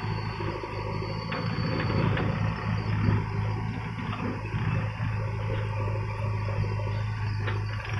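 Diesel engine running steadily close by, a constant low hum without revving.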